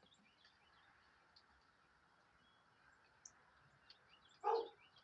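A dog barks once near the end, over faint, scattered bird chirps.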